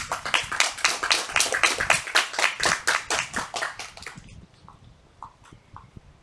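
A small group applauding, quick claps thick and fast for about four seconds, then dying away to a few scattered ticks.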